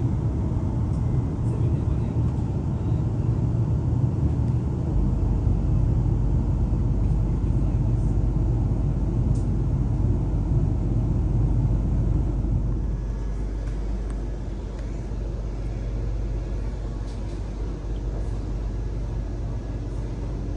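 Electric suburban train running, heard from inside the carriage: a steady low rumble of wheels on track and running gear. It becomes noticeably quieter about two-thirds of the way through.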